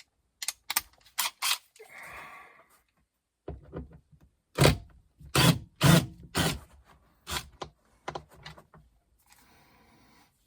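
Hand tools working on the Torx screws of a car's sun visor mount overhead: a series of sharp clicks, knocks and light scrapes, loudest in a cluster of knocks a little before the middle.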